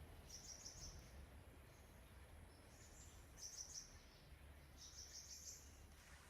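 Faint forest ambience: short groups of rapid, high-pitched chirps, four times, over a low steady rumble.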